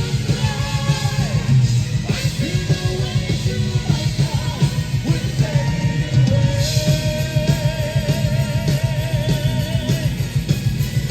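Symphonic metal band playing live: sung melody over distorted guitars and fast, dense drumming. About six seconds in, a high voice holds one long note with vibrato for several seconds.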